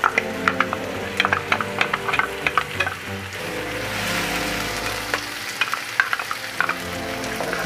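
Sliced onion and chopped garlic sizzling in hot oil in a non-stick pan, with a spatula stirring and scraping against the pan in quick clicks. The sizzle swells about halfway through. Soft background music plays underneath.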